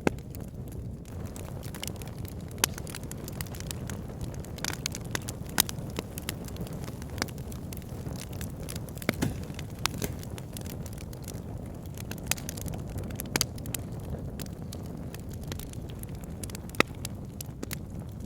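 Wood fire in a log burner crackling: irregular sharp pops and snaps over a steady low rumble of burning logs, with a few louder pops standing out.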